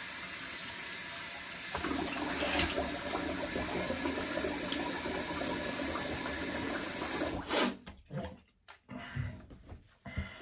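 Bathroom tap running into a sink while cold water is splashed onto the face with the hands. About seven and a half seconds in the water stops suddenly as the tap is shut off, followed by faint irregular rubbing as the face is dried with a towel.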